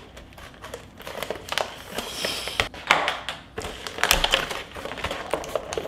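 A cardboard and plastic toy box being picked open and handled: irregular scratches, taps and crinkles of the packaging.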